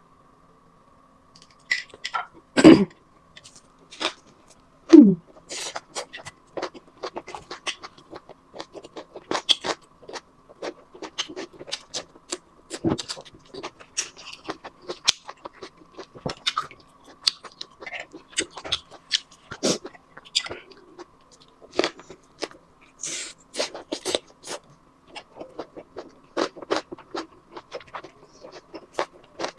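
Close-miked eating sounds: chewing, lip smacks and wet mouth clicks from someone eating beef shank rolled in rice paper, coming every fraction of a second. About three and five seconds in there are two louder, lower sounds that fall in pitch. A faint steady hum runs underneath.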